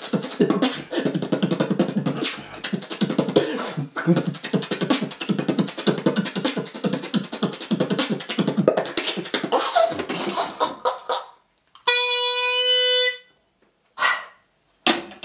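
Beatboxing: a fast, dense run of mouth-made drum sounds over a low hum, which dies away about eleven seconds in. Then one held pitched tone of about a second, and a short burst of sound near the end.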